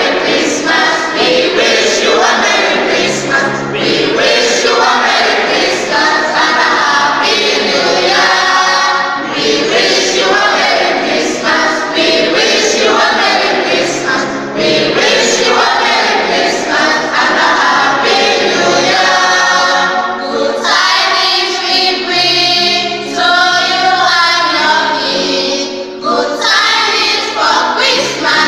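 A choir singing, in phrases of a few seconds each.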